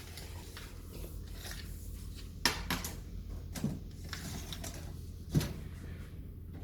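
Tools handled while measuring and marking a wall: a few sharp clicks and knocks, the loudest about five seconds in, over a steady low hum.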